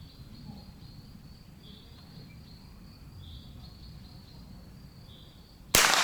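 Insects chirping faintly over a low outdoor rumble, and near the end one loud, sharp .22 LR rifle shot.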